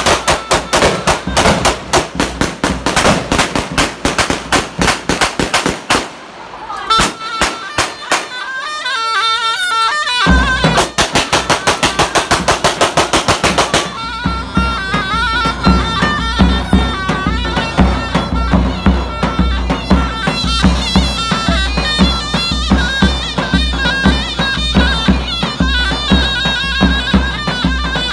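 Davul and zurna playing Turkish folk music: the zurna's shrill, wavering melody over the davul's booming beat. Dense runs of rapid, loud strikes fill the first six seconds and come again about ten to fourteen seconds in, before the steady dance rhythm takes over.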